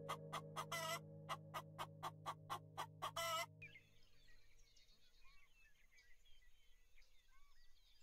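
Helmeted guineafowl calling: a fast run of harsh, clipped calls, about four a second, with a couple of longer drawn-out calls among them, which stops sharply about three and a half seconds in. Faint small-bird chirps follow.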